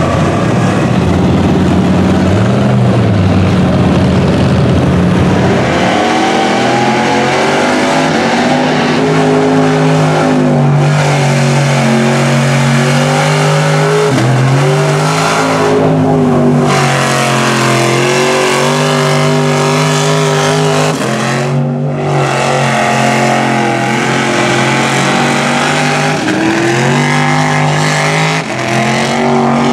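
Mud trucks' engines revving hard as they plow through a mud pit, the engine note climbing and falling again and again as the throttle is worked.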